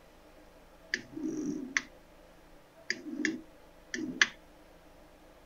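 Newly installed electric windshield wiper system with motor-driven cable and wheel boxes running: a sharp click, a short whir and another click, three times, about one, three and four seconds in. The last click is the loudest.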